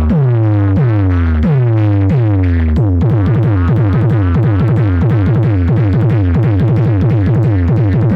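Loud electronic dance music built on a repeating synthesized bass note that falls steeply in pitch, about two or three times a second. From about three seconds in, the drops come roughly twice as fast.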